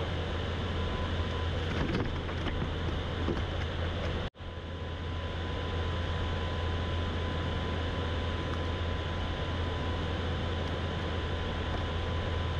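Steady low rumble and rush of a boat under way on the water, with a faint steady whine above it. The sound drops out for an instant about four seconds in, then carries on as before.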